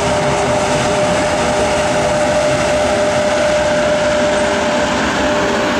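EP1M electric locomotive pulling a passenger train out of the station at low speed and passing close by, giving a loud, steady hum with one clear, steady tone.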